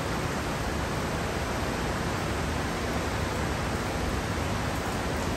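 Heavy driving rain falling, a steady dense hiss with no break or change.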